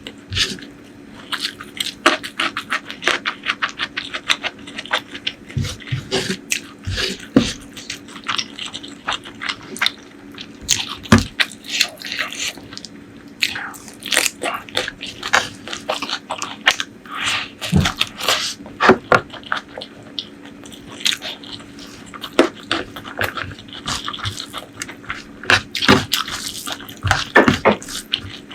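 Close-miked eating sounds: chewing, lip smacking and occasional crunches come as dense, irregular clicks throughout, with a faint steady low hum underneath.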